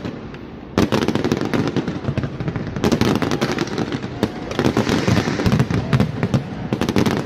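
Fireworks display going off in a dense, rapid barrage of bangs and crackles. It starts abruptly about a second in after a brief lull.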